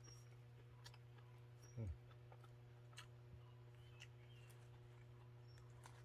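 Near silence: a steady low hum with a few faint clicks, and one brief falling tone just under two seconds in.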